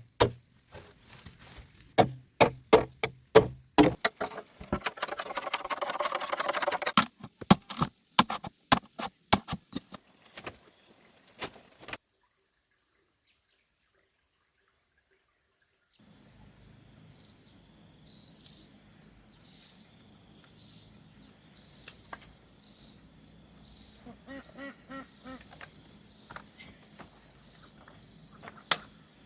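Many sharp knocks and thuds in quick succession for about eleven seconds, then near silence for a few seconds, then faint steady outdoor background with insects chirping.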